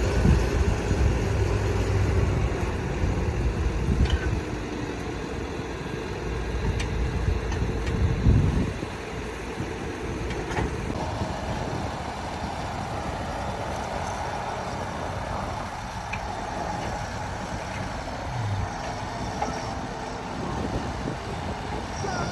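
Tractor engine running, loud for the first eight seconds or so, then fainter and steady.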